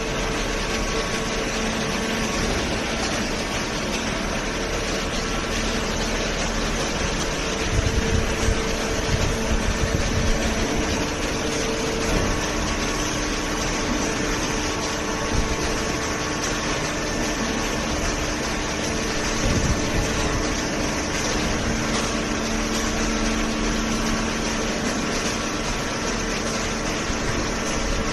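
Hydraulic cardboard baler running: a steady mechanical hum from its hydraulic pump and motor, with a few low knocks about eight to eleven seconds in.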